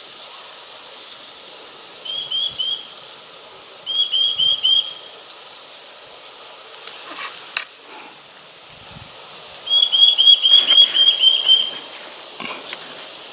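Eurasian nuthatch singing: rapid series of repeated whistled notes. A short run of three notes about two seconds in, a run of four or five about four seconds in, and a longer, louder run of about ten notes near the end.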